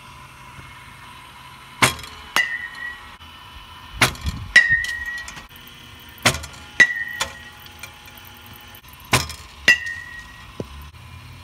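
Four batted balls off a Marucci CAT 7 one-piece aluminium-alloy bat, each a sharp ping with a short metallic ring, about every two and a half seconds. Each ping follows a sharper knock about half a second earlier.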